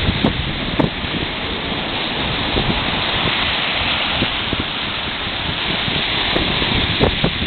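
Sea surf washing against the shore, with wind on the microphone: a steady rushing noise, with a few short sharp clicks near the start and again near the end.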